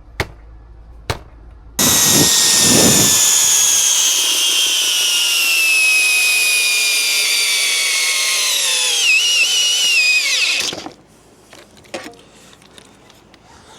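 Cordless hammer drill motor starting up under a torque-test load. Its whine falls steadily in pitch as it is loaded down, wavers near the end and stops abruptly after about nine seconds. A couple of clicks come before it starts.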